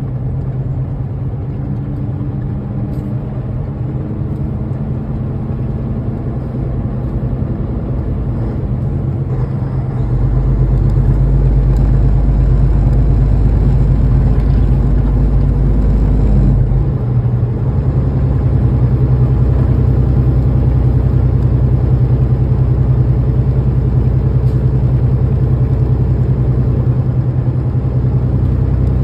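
18-wheeler semi truck's diesel engine and road noise, heard from inside the cab: a steady low drone that gets louder with a deeper rumble about ten seconds in.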